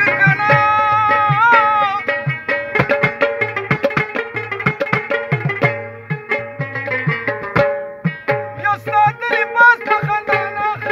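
Pashto folk music: a rabab plucked in quick runs over a mangay, a clay water pot drummed by hand in a fast rhythm, with a man's singing voice at the start and again near the end.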